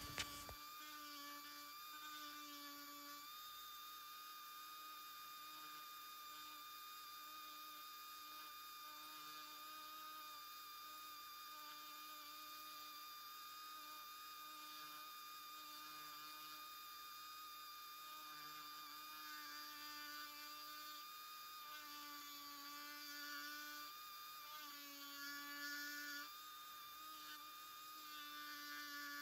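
Small handheld rotary tool spinning a pointed needle burr, carving fine detail into pine wood, with a faint, steady, high-pitched whine. The pitch wavers slightly a few times near the end as the burr bites into the wood.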